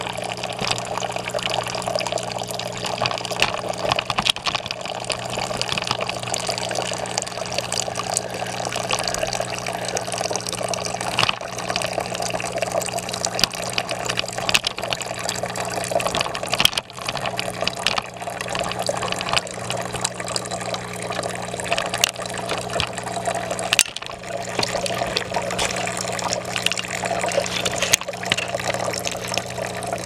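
Decorative rock fountain running, water trickling and splashing steadily over the stone, with a low steady hum underneath.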